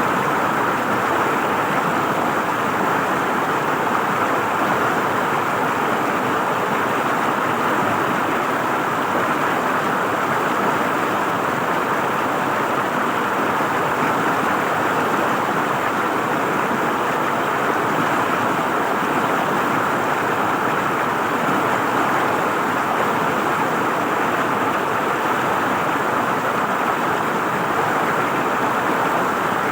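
River water flowing and gurgling over rocks in a steady rush, with no breaks or changes.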